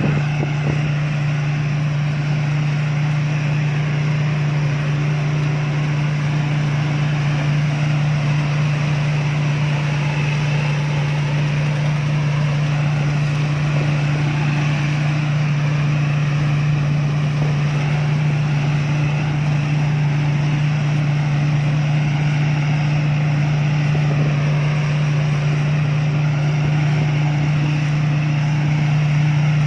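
Rice combine harvester's engine running steadily at constant speed, a loud even drone with the machine's mechanical noise over it.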